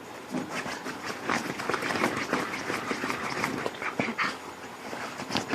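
Whippets at play, making a busy run of short dog noises mixed with panting and scuffling.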